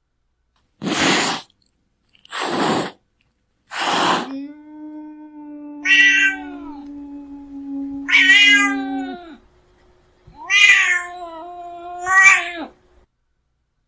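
Angry domestic cat hissing three times in quick succession, then a long, low, steady growl that rises into wavering yowls. After a short pause comes one more yowl.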